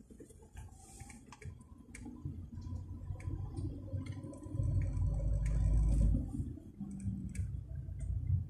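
Low engine and road rumble inside a slowly moving car's cabin, louder for a second or two near the middle, with scattered small clicks and rattles.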